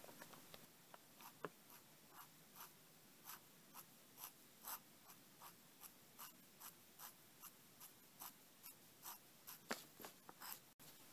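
Crow quill dip pen nib scratching across paper in short, quick hatching strokes, about two strokes a second.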